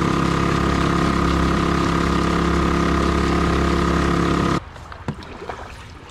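Small outboard motor on a kayak running at a steady, unchanging speed while under way. It stops suddenly about four and a half seconds in, leaving quieter wind and lapping water.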